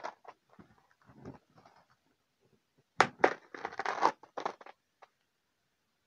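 Parcel packaging being unwrapped by hand: irregular crinkling, rustling and tearing. A louder flurry about three seconds in opens with a couple of sharp cracks.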